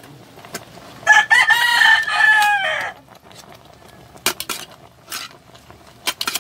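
A rooster crows once, a single call about two seconds long that drops in pitch at the end. A few sharp clicks follow later.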